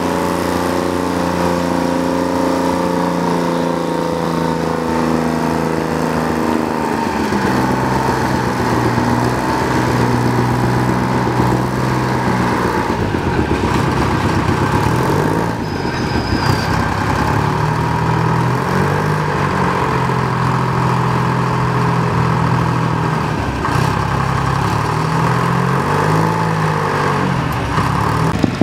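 A large engine running, its pitch steady at first, dropping about seven seconds in, then wavering up and down again and again through the second half.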